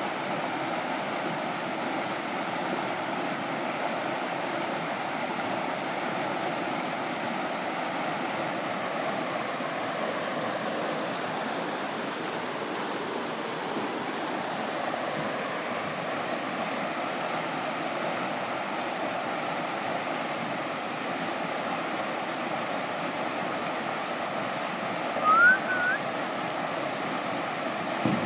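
Whitewater rushing steadily through a concrete spillway and over rocks. Near the end a brief rising whistle-like tone stands out above the water.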